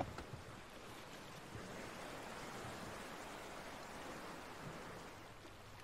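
Faint, steady hiss of background noise, swelling slightly in the middle, with one sharp click right at the start.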